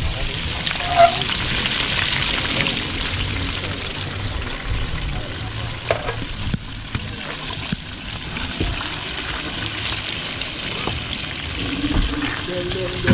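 Food sizzling as it fries in hot oil: a steady hiss with a few small clicks, over a low rumble.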